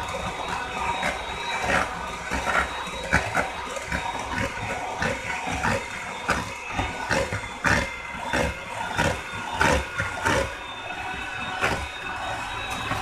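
A mixer running steadily, with a high whine held throughout and frequent irregular clacks and knocks.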